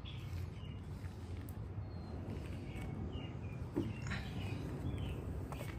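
Small birds chirping in short repeated calls over a steady low outdoor rumble, with a brief knock and rustle about two-thirds of the way in.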